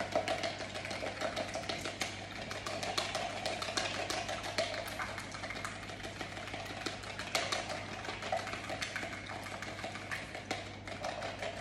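Eggs being beaten by hand in a plastic measuring jug: rapid, steady clicking of the utensil against the sides of the jug.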